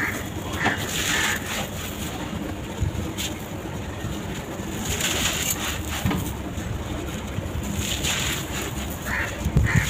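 Sand-and-cement bar being crushed and crumbling onto a hard floor: gritty crunching with scattered sharp cracks as pieces break off.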